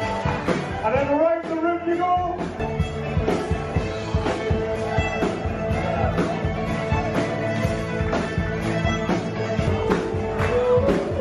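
Band playing upbeat dance music with a steady beat, about two beats a second.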